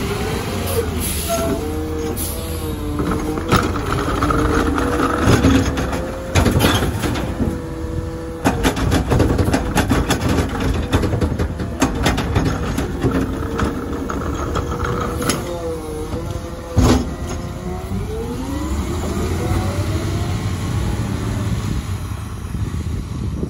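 Automated side-loader garbage truck picking up a wheeled cart: the engine revs and the hydraulic arm whines as it grabs, lifts and tips the cart, with clanks and bangs as the cart is emptied and shaken and one loud bang as it is set back down. Near the end the truck pulls away, its engine rising in pitch.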